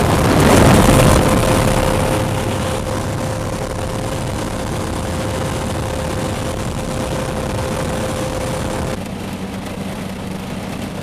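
Light aircraft's engine and propeller droning steadily, heard from inside the cabin during the climb to jump altitude, with a louder surge of noise about half a second in. About nine seconds in the sound changes suddenly to a lower, steadier drone.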